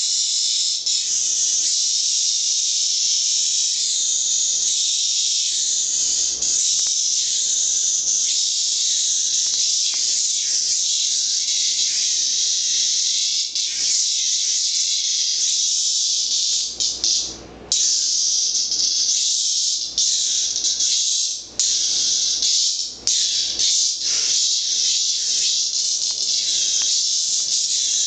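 Cicada buzzing loudly, a steady high-pitched drone that cuts out briefly a few times in the second half.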